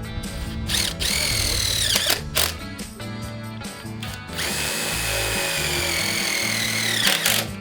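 Power drill running in two bursts, a short one about a second in and a longer one from about the middle to near the end, each whining down in pitch as the trigger is released, over background music.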